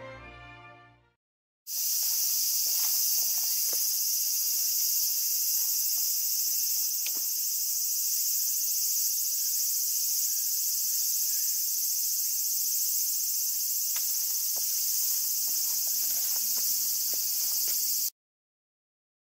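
A steady, high-pitched chorus of insects starts about two seconds in and cuts off suddenly near the end, with a few faint clicks under it. Just before, orchestral theme music fades out.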